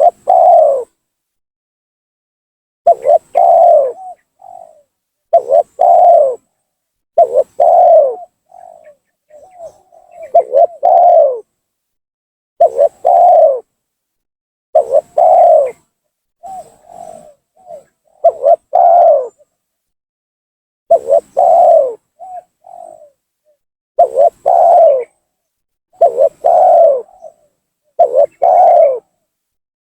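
Spotted dove (tekukur) cooing: a lively lure call of about a dozen short phrases, roughly one every two to three seconds, each a few coo notes, some followed by a softer trailing note.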